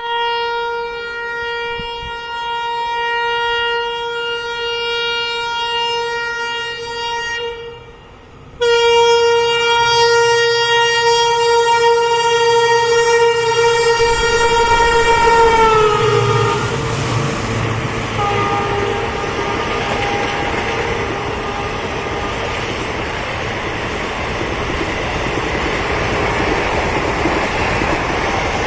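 Horn of an EMD WDP4D diesel locomotive sounding in two long blasts of about seven seconds each, with a short break between. The second blast falls in pitch as the locomotive goes by, and the steady rumble and rolling noise of the passing express train follows.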